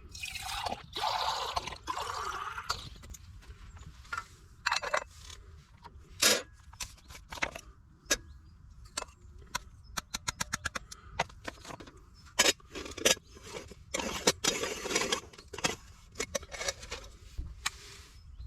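Handling noises: a string of scrapes and sharp knocks, with a quick run of clicks about ten seconds in, over a steady low rumble.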